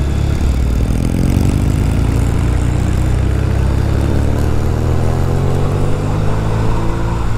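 Norton Commando's parallel-twin engine pulling under way. It rises in pitch over the first few seconds as the bike gathers speed, then holds steady.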